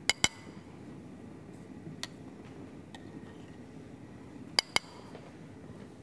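A metal spoon clinking against a dish: a quick double tap, a lighter single tap about two seconds in, and another quick double tap near the end, as foam is skimmed off a simmering stew.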